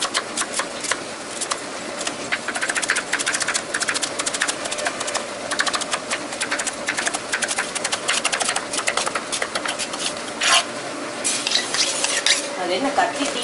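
Ordinary kitchen knife rapidly chopping onions on a wooden cutting block, quick sharp knocks several times a second. The chopping thins out a little after ten seconds in, giving way to a brief rustling noise.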